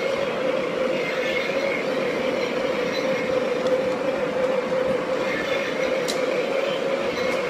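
Aristo-Craft Alco RS-3 G-scale model locomotive running along its track, heard from on board: a steady motor and gear hum with the running noise of wheels on rail, and one sharp click about six seconds in.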